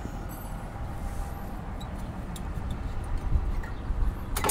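Light metal clicks of brake pads being worked out of a front brake caliper bracket by hand, over a low background rumble, with a sharper cluster of clinks near the end.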